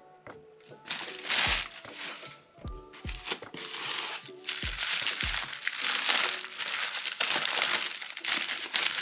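Crumpled newspaper packing paper crinkling and rustling as it is pulled out of a cardboard box, starting about a second in. Background music with deep, falling bass notes plays underneath.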